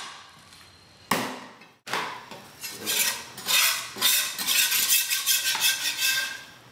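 Chinese cleaver chopping through a chicken on a wooden chopping block: a heavy chop about a second in, then a quick run of knocks and scrapes of the steel blade against the block.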